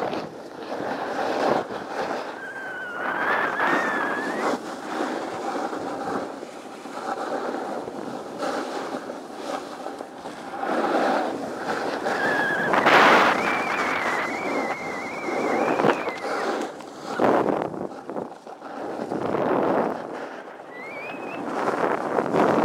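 Edges scraping and hissing over packed, groomed snow on a downhill run, with wind buffeting the microphone; the noise surges and fades with each turn and is loudest about thirteen seconds in. Thin wavering squealing tones rise and wobble about three seconds in, again from about twelve to sixteen seconds, and briefly near the end.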